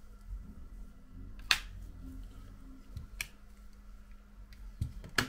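Three sharp clicks of small hard parts being handled during phone repair, the loudest about a second and a half in, over a steady low hum.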